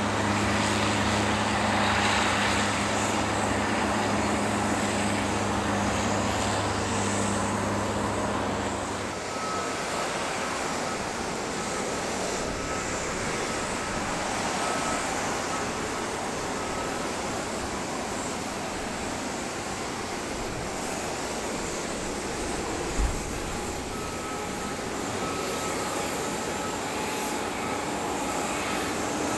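Jet airliner noise on an airport apron. A steady low hum for the first nine seconds changes to a broad jet rush with a faint high whine that comes and goes, and one short low thump about 23 seconds in.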